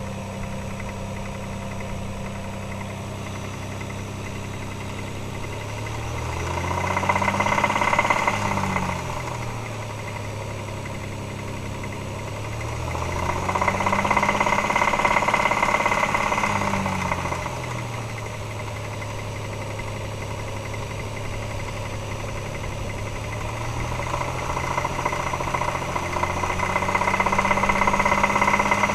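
Toyota 2JZ-GE 3.0-litre straight-six idling and revved up three times, each time held for a couple of seconds and let fall back to idle. It has a knock whose cause the owner does not know.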